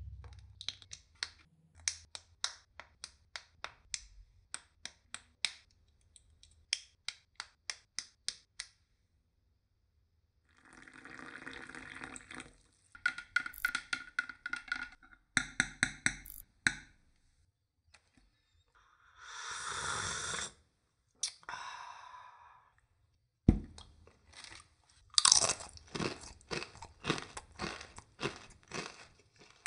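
Close-up desk sounds. First comes a run of small, sharp plastic clicks, two or three a second, as snap-fit model-kit parts are handled and pressed together. Then comes stirring in a cup with light clinks and a plastic bag rustling. Near the end, crisp snacks crunch as they are bitten and chewed.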